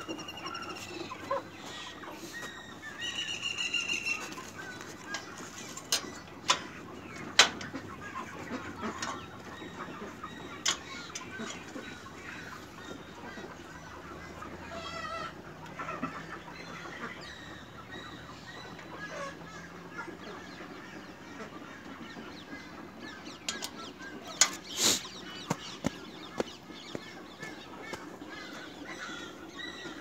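Chickens clucking, with other birds calling, some short high chirps in the first few seconds, and scattered sharp knocks and handling clicks.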